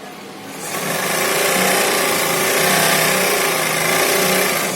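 Strobel-type shoe-sole stitching machine running steadily, starting up about half a second in.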